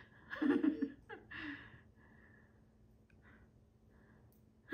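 A person laughing softly and breathing, a few short breathy laughs in the first second and a half.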